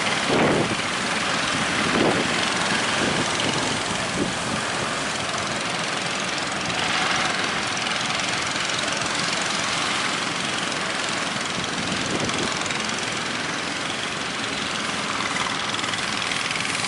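A boat's engine running steadily under a loud rush of wind and surf, with a couple of louder thuds in the first two seconds.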